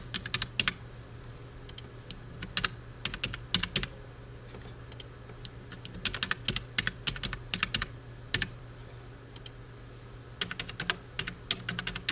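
Typing on a computer keyboard: quick clusters of keystrokes with short pauses between them, over a faint steady hum.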